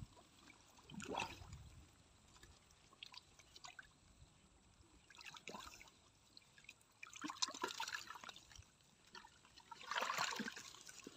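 Water sloshing and splashing in a few short, irregular bursts, the loudest about seven and ten seconds in, as people move and grope through shallow water while fishing by hand.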